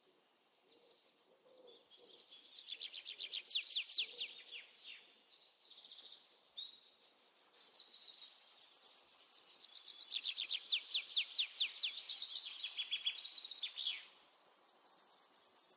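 Jungle birdsong: a bird sings long rapid runs of sharp, falling whistled notes, about five a second, twice, with varied chirps between. Near the end a steady high insect drone, like crickets, takes over.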